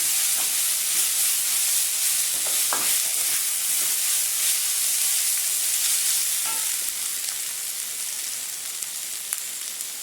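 Sliced onion, ginger, garlic and green chillies sizzling steadily in hot sunflower oil as they sauté for a curry masala, with a few light clicks; the sizzle eases slightly over the last few seconds.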